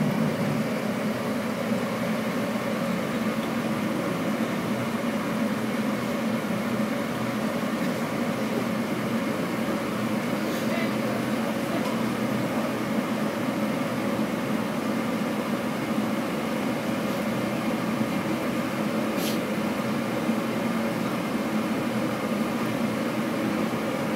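Steady hum and hiss of commercial kitchen equipment around a deep fryer, with a couple of faint sharp ticks partway through.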